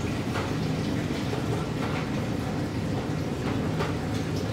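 Steady running-water noise in the darkroom sink, with faint irregular clicks as wet black-and-white film is unspooled off a stainless steel developing reel.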